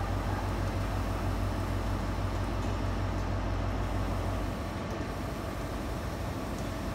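High Speed Train (InterCity 125) running with its diesel power cars, a steady low hum that drops away about four and a half seconds in.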